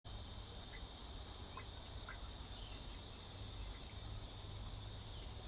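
Faint steady background noise: a low hum and a hiss, with a few faint short chirps.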